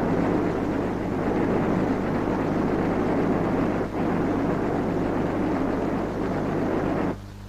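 Test centrifuge spinning at high speed: a steady rushing machine noise. It dips briefly about four seconds in and cuts off abruptly near the end.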